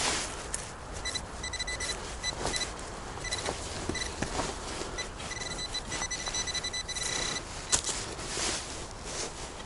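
Metal detector beeping: a fixed high electronic tone in quick repeated pulses from about a second in until near the end, over rustling of leaves and ground and a few knocks, with one sharp knock near the end.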